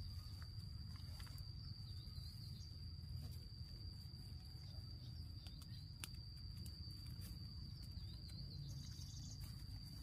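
A steady, high, single-pitch insect drone, like a cricket or cicada, over a faint outdoor background. A few faint wavering chirps come through about two, five and eight seconds in.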